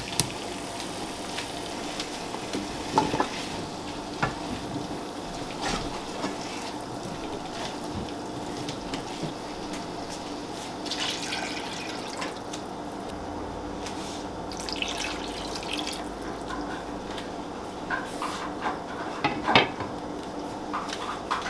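Kofte and potato curry cooking in a pan: a steady hiss with scattered clicks and knocks.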